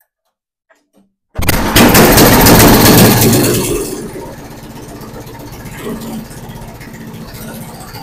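A Tecumseh 10.5-horsepower snowblower engine, choked, comes in suddenly and runs loud. About four seconds in it settles to a steadier, quieter run. It is running again, its carburetor rebuilt after water in the fuel.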